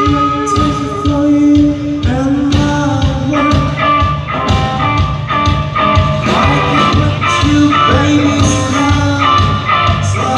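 Live rock band playing a blues-rock song: electric guitar, bass guitar and drum kit, with a male voice singing over them.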